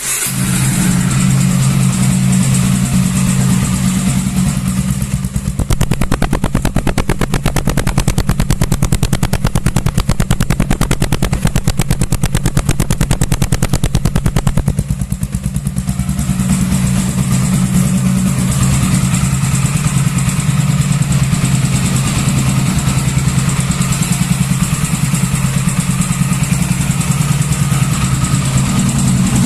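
Honda Twister motorcycle's single-cylinder four-stroke engine running through a loud aftermarket muffler taken from a Honda Pop 110. It idles at first, is revved and held up for several seconds from about five seconds in, drops back briefly around fifteen seconds, then runs up again.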